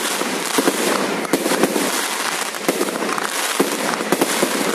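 Aerial fireworks barrage going off: many sharp bangs and pops in quick, irregular succession over a dense crackle as shells launch and burst one after another.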